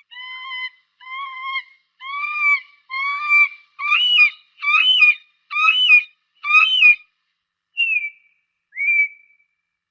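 A falcon calling: a run of about eight piercing, evenly repeated cries, each about half a second long and roughly one every 0.8 seconds, growing louder and harsher through the middle. These are followed by two shorter, down-slurred notes near the end.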